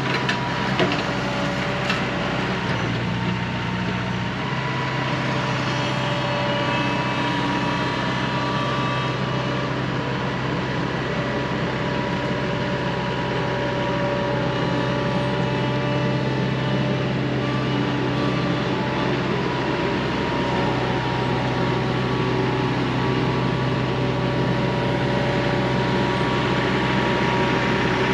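A machine running steadily with a constant hum, its pitch shifting slightly about four seconds in.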